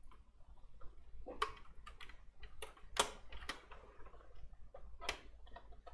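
Sheet-metal drive cage being fitted back into a Lenovo ThinkCentre desktop's steel case: a run of irregular light clicks and knocks, the sharpest about three seconds in and another about five seconds in.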